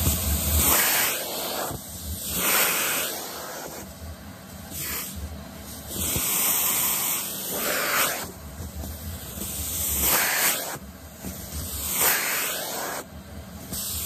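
Vacuum cleaner sucking at a doll's long synthetic hair: a rushing hiss of air that swells and drops every second or two as the nozzle is worked into and out of the hair.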